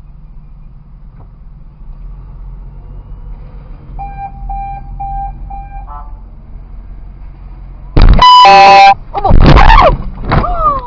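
A long, very loud car horn blast of about a second, with loud shouting right after it, as a car backs up toward the stopped vehicle. Before that, a few short electronic beeps at one pitch sound over a low engine idle.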